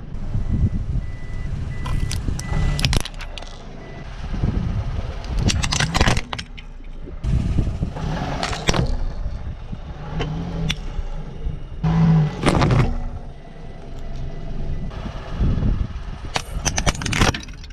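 Car tyre rolling slowly over plastic baby rattles, with repeated cracking and crunching of breaking plastic, about six bouts in all, over the low rumble of the car's running engine.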